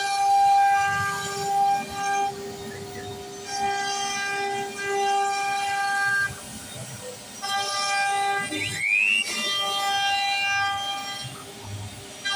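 CNC wood router at work: its motors whine in steady pitched tones that break off and resume every few seconds as the machine moves, with a brief rising sweep of pitch about nine seconds in.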